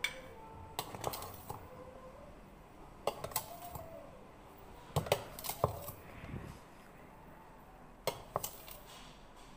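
A measuring scoop clinking and scraping against a stainless-steel sugar canister as white sugar is scooped out: short clusters of sharp clinks every two to three seconds.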